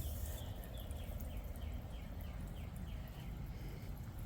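A bird calling a run of short, falling notes, about three a second, that stops about three seconds in, over a steady low rumble.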